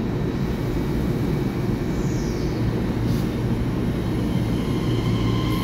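EMU3000 electric multiple unit starting to pull out of an underground station platform: a steady low rumble, with a brief falling whistle-like tone about two seconds in and a click a second later. Near the end, steady motor-whine tones set in as the train gets under way.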